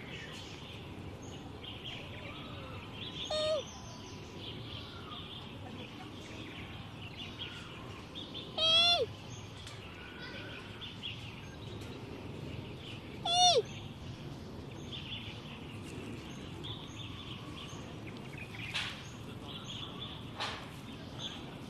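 Giant panda cub giving three short "hmm-hmmm" calls, several seconds apart, each dropping in pitch at the end, over faint background bird chirping.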